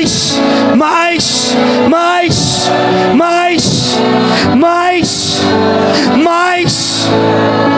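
Slow worship music: sustained chords held underneath, with a voice singing short phrases that rise and fall about once a second.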